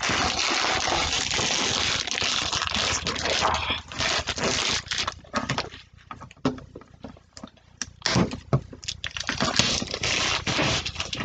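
Plastic packaging film crinkling and rustling as it is pulled off and handled: dense at first, thinning to scattered crackles in the middle, then busier again near the end.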